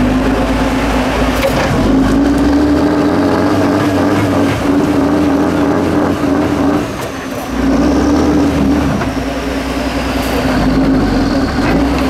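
Diesel engine of an 8x8 Tatra trial truck running steadily under load as the truck crawls through rough grass. The engine note dips briefly about seven seconds in, then picks up again.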